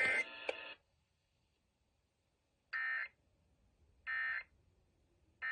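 Emergency Alert System digital data signal: three identical short buzzy bursts, each under half a second, about a second apart. This is the SAME end-of-message code sent after a severe thunderstorm warning broadcast.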